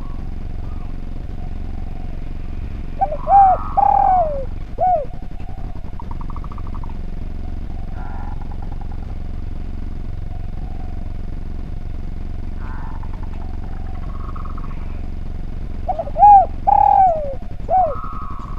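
Spotted dove (derkuku) cooing: two phrases, about three seconds in and again about sixteen seconds in, each a quick double coo, a longer coo and a last short coo. A steady low hum runs underneath.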